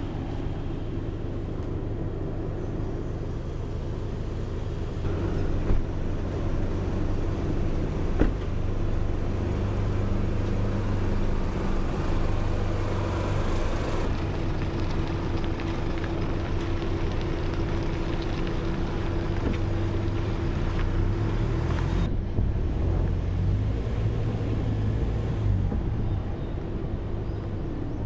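Motor vehicle driving at a steady speed: steady engine drone with road noise, and two sharp knocks about six and eight seconds in.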